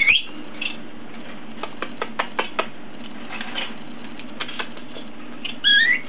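Young budgerigar giving a short high chirp at the start and a louder rising chirp near the end. In between come a scattering of light clicks and taps.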